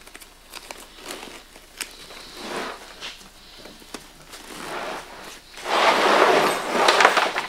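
Zipper on a backpack being pulled in several short strokes, with fabric rustling and small clicks; the longest and loudest pull comes near the end.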